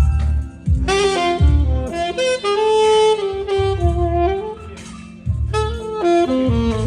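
Saxophone playing a flowing jazz melody live, with held and moving notes, over deep bass notes underneath.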